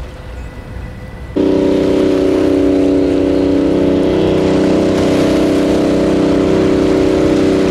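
Engine of a small pilot boat running steadily, a loud, even drone that comes in suddenly about a second and a half in, after a fainter low rumble.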